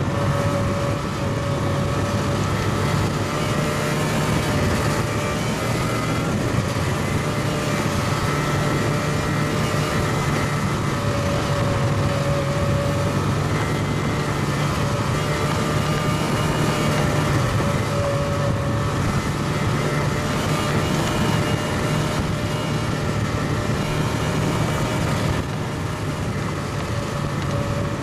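Snowmobile engine running steadily at cruising speed, heard from aboard the moving sled: a steady low hum with a higher engine tone above it. It eases off slightly near the end.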